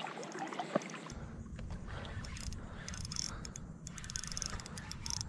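Small water lapping and splashing close to the microphone, with a steady low wind rumble that comes in about a second in.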